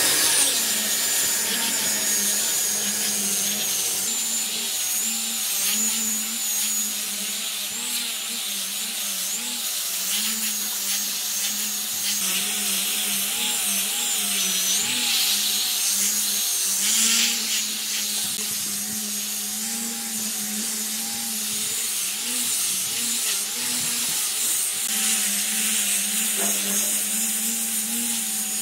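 Electric power tool running steadily on wood: a continuous motor hum that wavers a little in pitch, over a dense high hiss.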